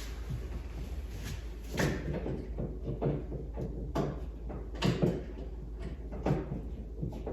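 Irregular knocks and clunks, about half a dozen over several seconds, from working on a TV wall mount after hooking the TV onto its brackets, over a steady low hum.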